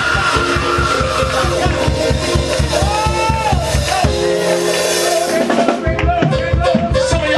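Live praise music with a fast, steady drum beat under held keyboard chords and voices. The drumming drops out about four seconds in.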